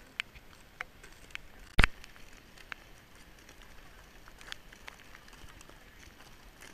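Boots crunching on glacier ice as people walk, a scatter of sharp, irregular crunches. A single loud thump comes a little under two seconds in.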